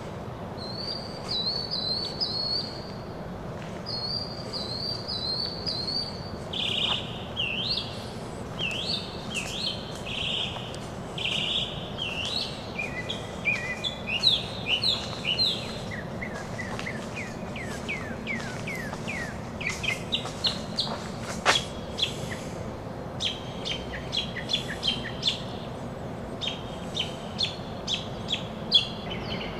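Songbird singing a long run of varied chirping phrases, each note repeated several times before it switches to another, over steady background noise.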